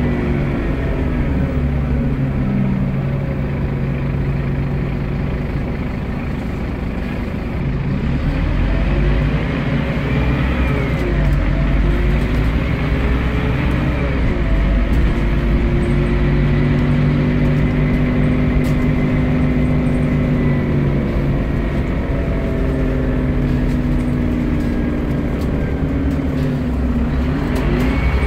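Interior drone of a Scania CN230UB bus's diesel engine and driveline, heard from a passenger seat, with a thin high gearbox whine above it. The pitch rises and falls as the bus pulls away and slows, then holds steady while it cruises.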